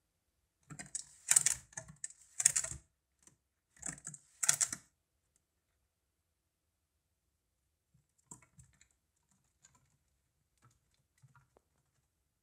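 Chipmunk's claws scrabbling against the clear plastic walls of a drink-bottle tube: rapid scratchy clicking in several bursts over the first five seconds, then only a few faint ticks.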